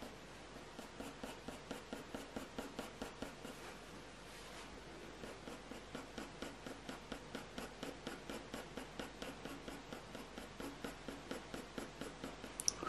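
Soft 4B graphite pencil scratching across hot-press watercolour paper in quick short strokes, about four a second, in runs with brief pauses, as fur texture is hatched in. A single sharper click comes near the end.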